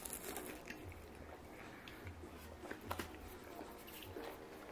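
Faint chewing with small, scattered mouth clicks and smacks.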